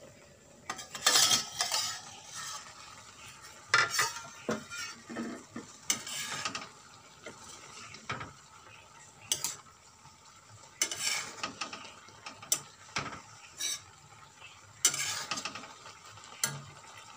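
A metal spoon scraping and stirring greens in a metal wok, in irregular bursts of scraping and clatter against the pan, with food sizzling faintly between strokes.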